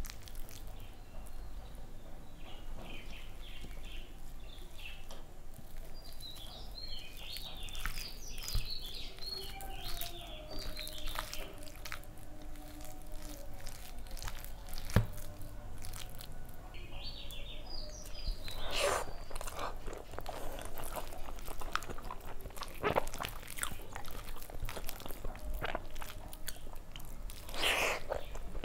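Fingers mixing soft, starchy rice and mashed potato on a plate, making small wet squishes and sticky clicks close to the microphone. Mouth sounds of chewing come near the end.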